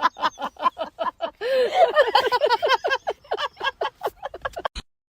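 High-pitched staccato laughter, about five or six short notes a second, breaking off suddenly shortly before the end.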